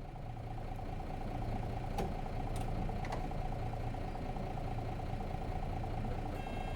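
Nissan Diesel FE6 inline-six diesel engine of a 2002 RM city bus idling steadily, heard from inside the cabin, with a few sharp clicks a couple of seconds in and a short steady tone near the end.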